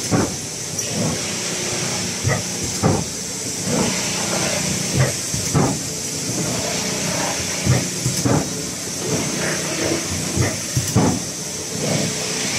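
Automatic tilting thermoforming cup machine running: a steady high air hiss over a low rumble, with dull clunks of the moving press and linkage at uneven intervals.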